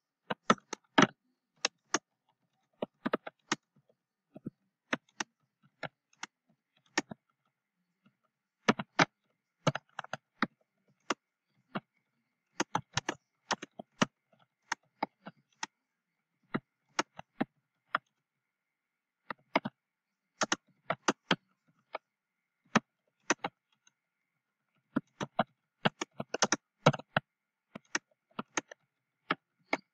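Typing on a computer keyboard: sharp keystroke clicks in irregular bursts with short pauses between them.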